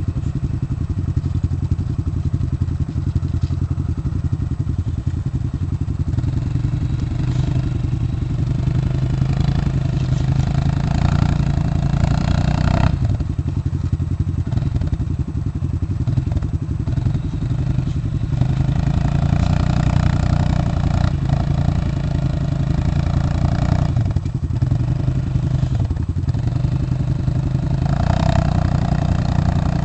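ATV engine running under load, its revs rising and falling; it is pushed harder three times, the first push dropping off sharply about halfway through.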